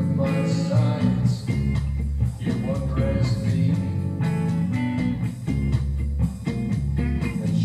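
Rock song, an instrumental passage: guitar over a bass guitar line and a steady drum-machine beat.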